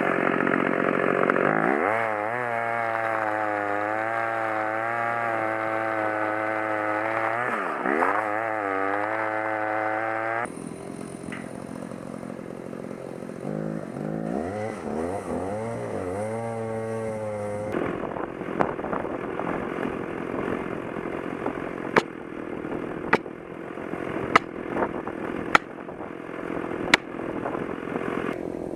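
Stihl chainsaw running under load through an ash trunk, its engine pitch dipping and recovering several times as the bar bites in. After it stops, several sharp cracks ring out in a noisier stretch.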